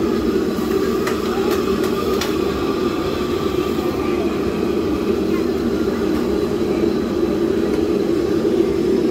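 Steady, loud rumble of a moving vehicle, with a few sharp clicks in the first two seconds.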